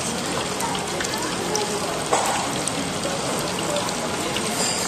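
Steady sizzling of skewers deep-frying in hot oil, with faint chatter and a few small clicks of tableware.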